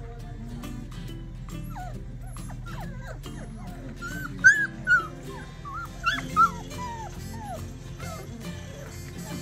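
Four-week-old Bernedoodle puppies whining and yipping in many short, high, wavering squeals. The loudest four come between about four and six and a half seconds in, over background music.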